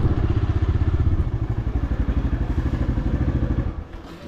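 TVS Raider 125's single-cylinder engine running at low revs as the motorcycle rolls slowly along, a rapid even pulsing. Near the end the engine sound drops much quieter.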